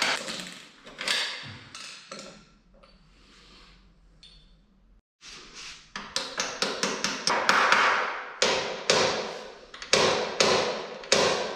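Hand tools knocking and clinking against metal motorcycle parts while a footrest is being replaced. A few sharp knocks come first, then a quiet spell, then a quick run of clicks and repeated knocks in the second half.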